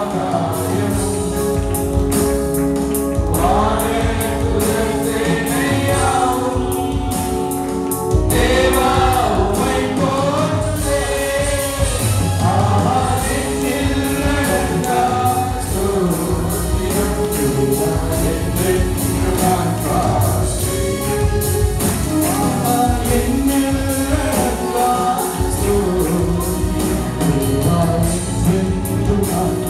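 Voices singing a Tamil Christian worship song over instrumental accompaniment with a steady beat.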